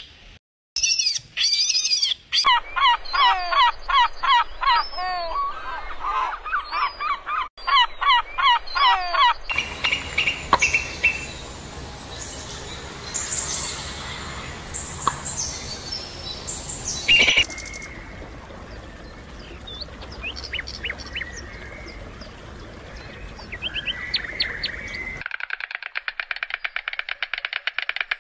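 A run of edited animal calls: first short, pitched chirping calls repeated about twice a second, then scattered high bird-like chirps over outdoor background noise. Near the end comes a fast, even rattle of clicks.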